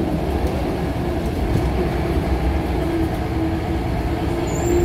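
Interior running noise of a Scania L94UB single-deck bus on the move: a steady low rumble with a faint whine that rises slightly in pitch.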